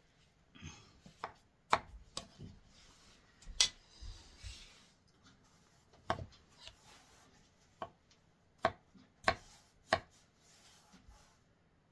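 Kitchen knife slicing soft peeled fruit, the blade knocking on a wooden cutting board in sharp, irregular taps, about a dozen in all.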